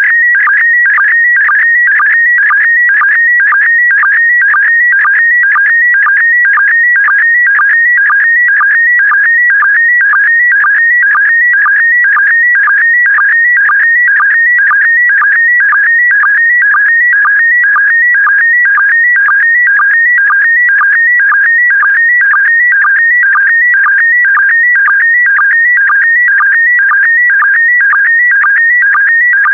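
Slow-scan television image signal in PD120 mode: a loud, steady electronic warble sweeping between about 1.5 and 2.3 kHz as it carries picture lines, broken about twice a second by a short, lower sync blip.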